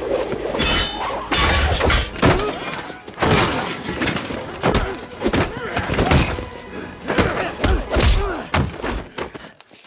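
Film fight-scene sound: a rapid run of punches and body thuds, with crashing and breaking of objects and short grunts between the blows.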